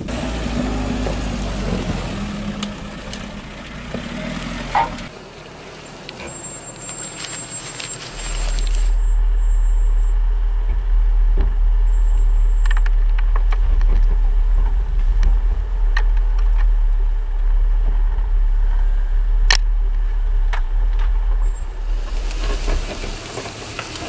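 GAZ-69's four-cylinder engine labouring up a steep forest slope for the first few seconds, then easing off. From about eight seconds a loud, deep rumble with muffled highs takes over for most of the rest.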